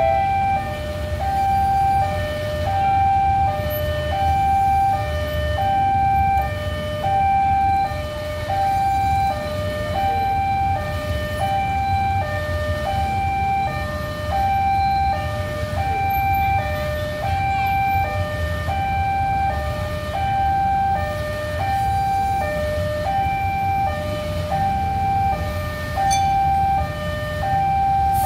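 Railway level-crossing warning alarm sounding a two-tone high-low chime over and over, with a steady low rumble of road traffic underneath.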